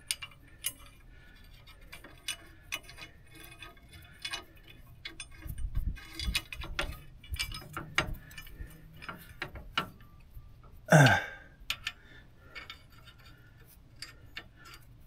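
Scattered small metallic clicks and taps as a steel mounting bracket and its bolt are handled and worked into place by hand under an RV's leaf spring, with a few duller knocks around six seconds in. A single louder, brief sound comes about eleven seconds in.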